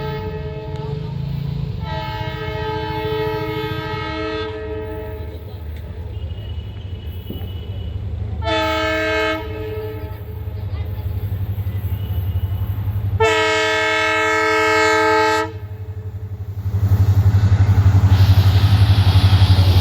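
A WDP4D diesel locomotive's horn sounds three blasts, each of several notes at once: a long one about two seconds in, a short one near the middle, and another long one a few seconds later. Under them the train's low running rumble grows much louder near the end, with a fast, even beat.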